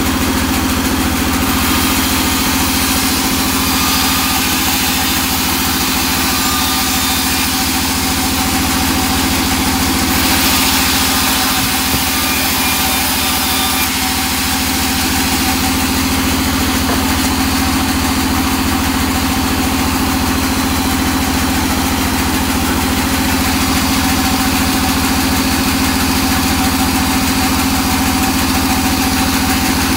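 Sawmill band saw running steadily with a constant hum and hiss. About a third of the way in, the hiss brightens for a few seconds as the blade rips a thin teak board.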